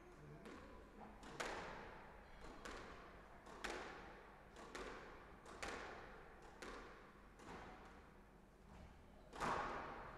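A squash ball being hit by one player: racket strikes and the ball smacking the front wall, about one knock a second, each ringing out in the court's echo. The loudest knock comes near the end.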